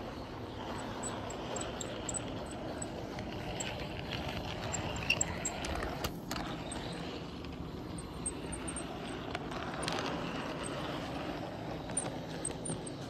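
HO-scale model train rolling along its track, a steady rumble of wheels and motor with many small clicks.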